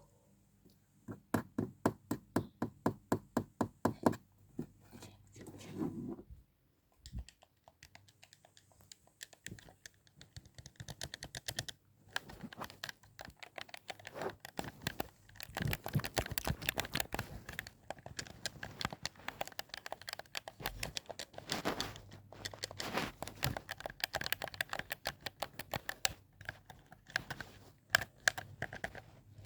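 Close-up tapping and clicking: an even run of about four to five taps a second, then denser, irregular clicking with some crinkling.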